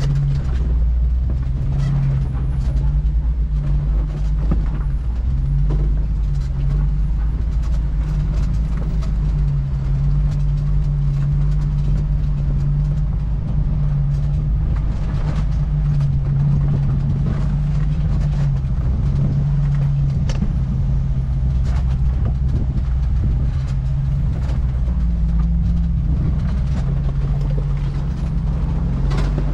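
Jeep engine running low and steady as it crawls down a rocky off-road trail, its drone shifting a little in pitch, with scattered knocks and clatter from the tyres and suspension over rock.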